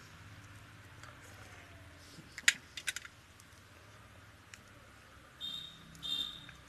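A person eating fish curry and rice by hand, chewing close to the microphone with sharp smacking clicks, loudest in a quick cluster about two and a half seconds in. Two short high-pitched squeaky sounds come near the end.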